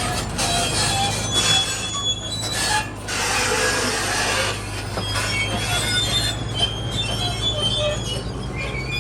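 A heavy crawler machine with its engine running in a steady low drone, while its steel tracks give scattered short, high metallic squeals and creaks.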